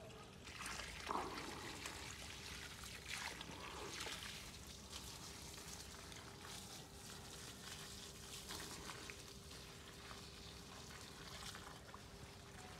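Water from a garden hose pouring and trickling onto soil and mulch at the base of plants, with a few brief louder splashes in the first few seconds.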